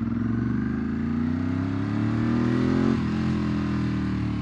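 Ducati 748 SP's L-twin engine pulling under acceleration, its pitch rising for about three seconds, then dropping at what sounds like a gear change about three seconds in. The engine is not yet fully warm.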